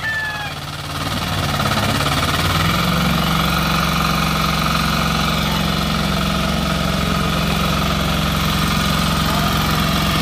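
Small engine of a pagong (turtle) hand tiller running under heavy load as the machine bogs down in deep paddy mud. It dips briefly, then picks up from about a second and a half in and holds a steady, higher speed.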